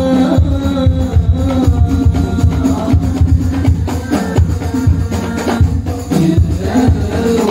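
Sholawat, Islamic devotional songs, sung by a group into microphones over a PA, with a steady fast drum and tambourine-like percussion beat.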